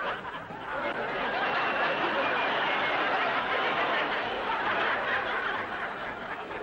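Studio audience laughing, a continuous crowd laugh made of many overlapping voices.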